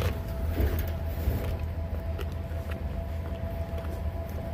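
Large dog chewing raw meat with a puppy's mouth pressed against his, a few faint crunches and wet chews over a steady low rumble and hum.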